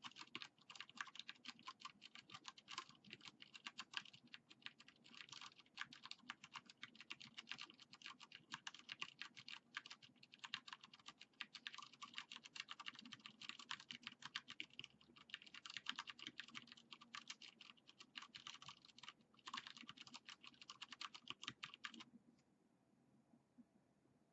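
Continuous fast typing on a Vortex Pok3r 60% mechanical keyboard with Cherry MX Clear switches and PBT Cherry-profile keycaps, a dense run of keystrokes. The typing stops about two seconds before the end.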